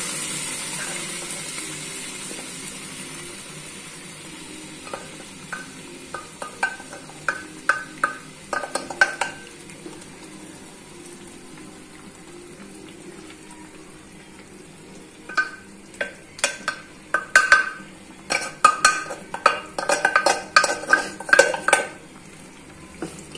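Boiled rajma and black urad dal, with their cooking water, sizzling as they are poured into hot fried masala in a pan; the sizzle fades over the first few seconds. Then a wooden spatula stirs the mix, clicking and knocking against the pan in two spells.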